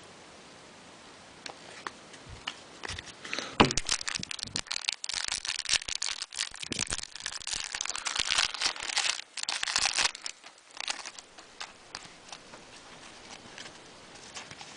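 A trading-card pack's wrapper being torn open and crinkled in the hands, with cards rustling, starting about three and a half seconds in. It is loudest near the start and again just before it dies down to a few faint clicks after about ten seconds.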